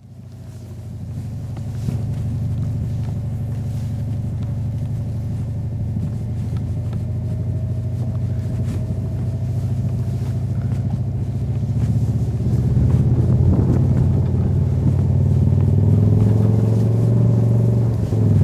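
Subaru Legacy GT-B's twin-turbo flat-four engine running steadily under load while towing a snowboarder through snow, a low drone that fades in over the first couple of seconds. It grows louder and rises a little in pitch over the last several seconds as the car speeds up.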